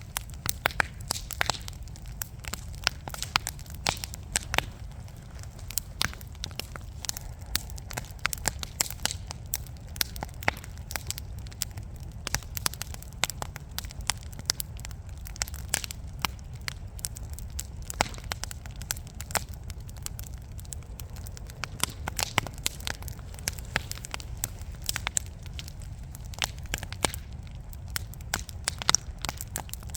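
Wood fire burning in a fireplace: irregular sharp crackles and pops from the burning logs, several a second, over a steady low rumble.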